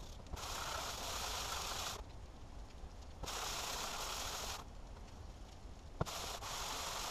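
Cast-iron block plane body rubbed back and forth on sandpaper to take off surface rust: three spells of rasping scraping, each a second or more long, with a sharp knock about six seconds in as the plane is set down and picked up again.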